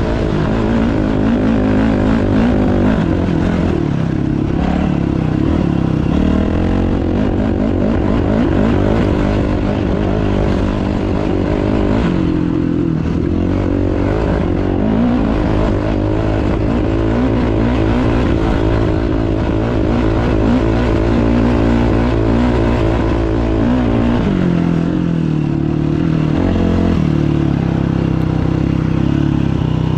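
Dirt bike engine running under changing throttle, its pitch rising and falling, with a clear change in note about 24 seconds in.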